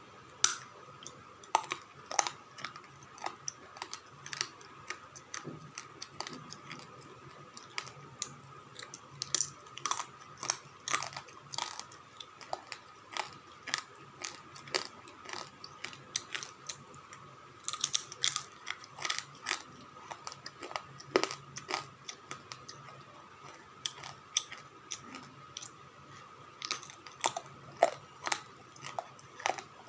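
Slate pencils being bitten and chewed close up: a long, irregular run of sharp crunches and snaps, several a second at times, over a faint steady hum.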